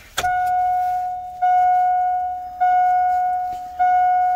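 The dashboard warning chime of a 2001 GMC Sierra 2500HD, sounding at key-on. A click comes first, then four bell-like dings at the same pitch, about one every 1.2 seconds, each fading before the next. With the seatbelt light lit, this is the seatbelt reminder chime.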